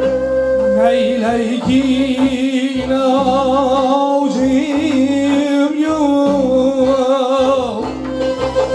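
Man singing with a wavering vibrato, accompanied by a plucked long-necked lute and held electronic keyboard notes; the voice comes in about a second in.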